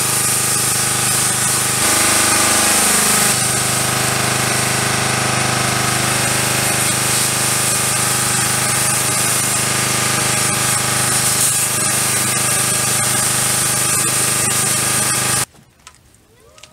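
Pressure washer running steadily, its motor humming under the loud hiss of the spray jet, with a brief falling tone about two to three seconds in. The sound cuts off abruptly near the end.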